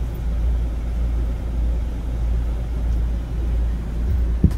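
A steady low rumble runs throughout, with a single thump near the end as a child's hands and feet come down on a carpeted floor during a back walkover.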